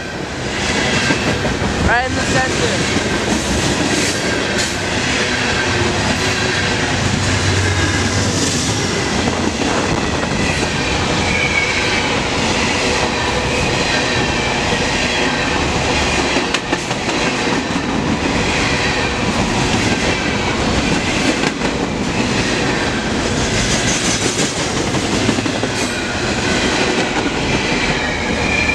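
Freight train cars rolling past close by, wheels clicking steadily over the rail joints, with faint high wheel squeals now and then.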